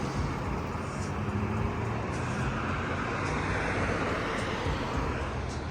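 Road traffic: car engines running low and steady, with tyre noise from a passing car swelling about three to four seconds in.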